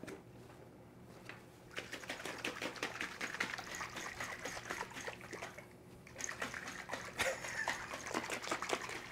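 A glass mason jar with a plastic lid, holding oil-and-vinegar tomato dressing, shaken hard and fast, the liquid sloshing and rattling in quick strokes to emulsify the dressing. The shaking starts about two seconds in and pauses briefly about three seconds before the end.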